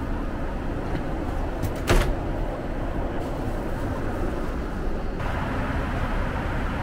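Steady in-flight cabin noise of a Boeing 777-300ER: an even rush of air and engines, with a single short knock about two seconds in.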